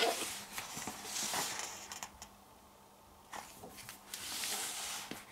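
Soft swishes of paper being handled, twice, the second one longer, with a few light taps and clicks between.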